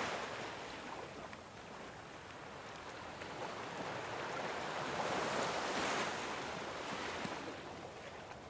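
Ocean waves washing on a shore: a soft wash fades at the start, and the next wave swells to a peak about six seconds in and then recedes.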